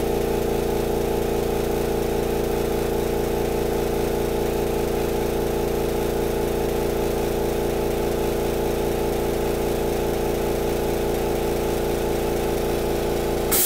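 Makita MAC2400 air compressor running steadily, its oil-lubricated pump and motor filling the tank as pressure climbs toward the 130 psi cut-out. It shuts off at the very end with a sudden burst of hiss as air is released at cut-out.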